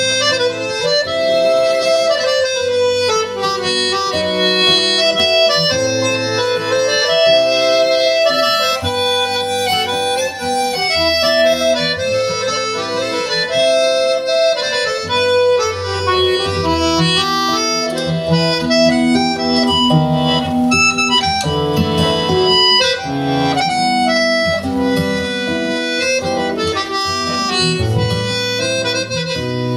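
Live folk band playing an instrumental dance tune: a piano accordion and a smaller concertina-type squeezebox carry sustained reedy melody and chords, with a fiddle and an acoustic guitar.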